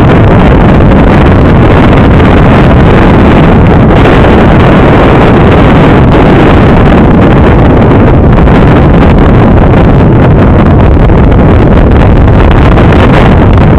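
Strong wind gusts buffeting a phone's microphone: a loud, unbroken rush of wind noise, heaviest in the low end.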